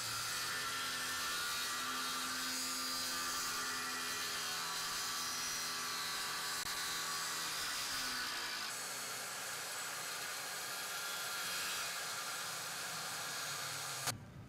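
Power saw running through a plywood sheet, a steady high whine whose pitch dips about eight seconds in as the blade loads up. The sound cuts off abruptly just before the end.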